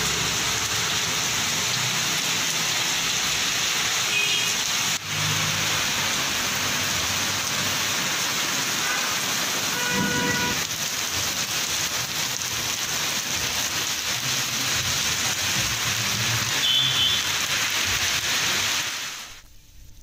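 Heavy rain pouring steadily on a street, a dense even hiss, with a few brief tones from the street, the clearest about halfway through. The rain fades out near the end.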